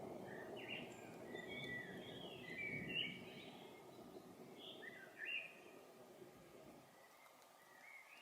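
Distant thunder rumbling and dying away, with a songbird chirping in short bursts over it: a run of calls in the first three seconds, more around five seconds in and again near the end.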